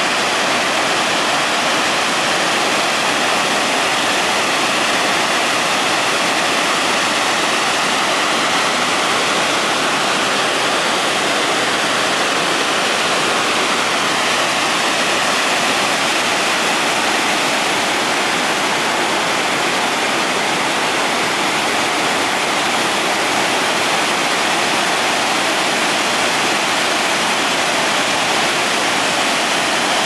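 Chinda Falls, a broad curtain waterfall spilling over a wide rock ledge into its plunge pool, rushing steadily.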